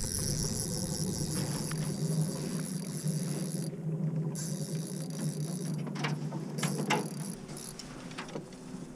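Small boat motor running steadily with a low hum while the boat trolls, with a couple of short clicks or knocks about two-thirds of the way through.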